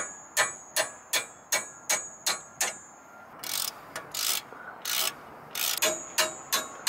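Hammer blows on a wrench fitted to a brake-caliper bolt, knocking the bolt loose, about three strikes a second, each with a high metallic ring. The hammering stops for a couple of seconds of rough scraping, rasping strokes, then starts again near the end.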